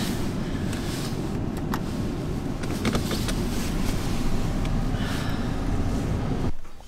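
Car running, heard from inside the cabin: a steady low rumble of engine and road noise, with a few light clicks. The sound cuts off suddenly about six and a half seconds in.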